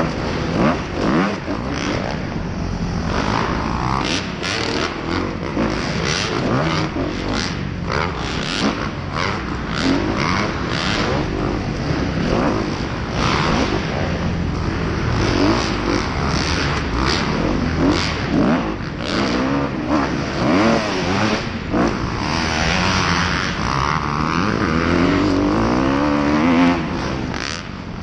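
Kawasaki KX250F four-stroke single-cylinder motocross engine revving up and down as the rider works the throttle through the track, heard from an onboard camera, with repeated rough gusts of noise over it.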